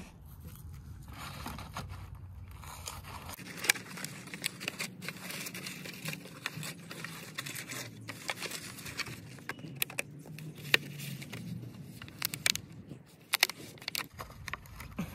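Thin plastic seedling cell pack crackling and clicking as gloved hands squeeze, flex and tip it to work the seedlings out, in scattered sharp clicks with rustling between.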